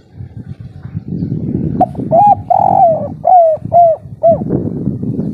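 Spotted dove (tekukur/derkuku) cooing its 'kuk 3' song: a run of about six rounded coo notes, the third held longer, over a low rough rumble.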